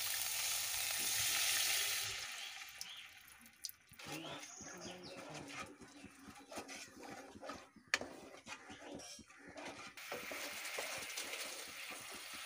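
Water poured into a hot kadai of fried masala, hissing and sizzling loudly for about two seconds. The masala and water are then stirred with a spatula, with scraping and light clicks against the pan, and an even sizzle picks up again near the end.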